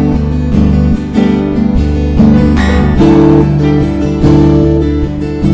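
Background music: strummed acoustic guitar, with chords changing about once a second.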